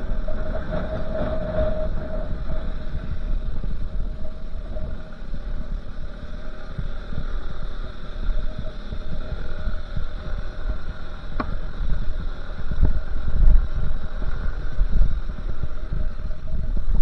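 Steady rumble of wind and road noise from a moving vehicle climbing a winding road, under a constant hum that is strongest near the start as an auto-rickshaw three-wheeler passes the other way. A single sharp click about eleven seconds in.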